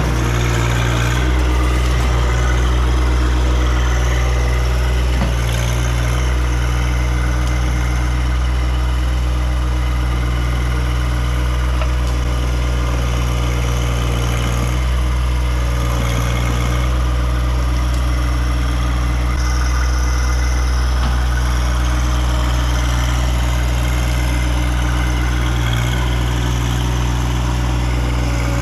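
John Deere 1025R sub-compact tractor's three-cylinder diesel engine running steadily, with slight changes in load about five seconds in, halfway through and near the end.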